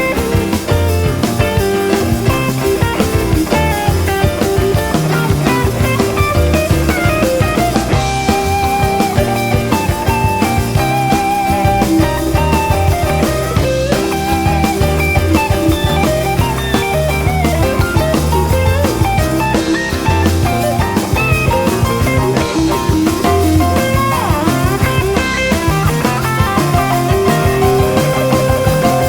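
Rock music soundtrack with electric guitar and drum kit, a steady beat throughout.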